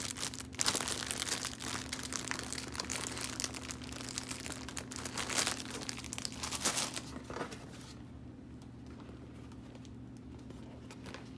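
Plastic snack packaging crinkling and rustling as it is handled, in irregular bursts, stopping about eight seconds in.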